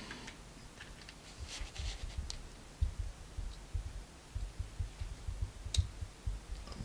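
Faint small clicks and soft low bumps of hands handling a lock's pin, fitting it into a pin chamber during reassembly.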